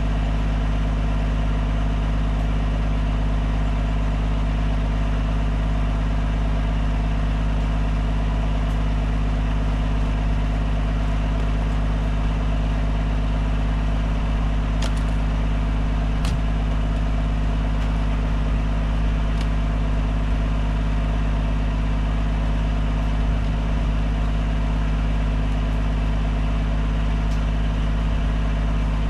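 An engine idling steadily at an even pitch, with a few faint ticks about halfway through.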